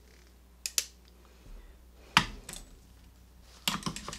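Sharp metal clicks and taps as a rusted American 5200 padlock is worked on while being taken apart: a pair of clicks, a single louder click a couple of seconds in, then a quick run of clicks near the end. Its retaining screw has rusted away.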